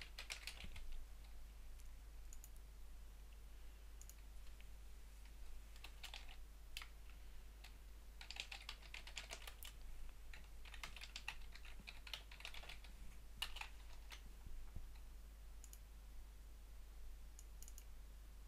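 Faint computer keyboard typing in short bursts of keystrokes, with pauses between the bursts.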